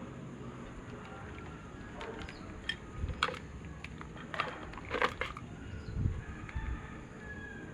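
Scattered clicks and light knocks of an electric fan motor's parts being handled. There is no running hum: the motor is not turning.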